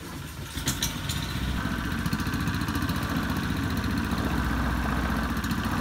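A small engine starting off and running, building up over the first second or two and then holding steady with a fast, even firing rhythm.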